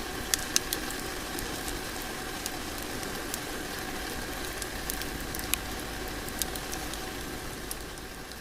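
Fireplace fire crackling, a steady hiss broken by irregular sharp pops, fading out near the end.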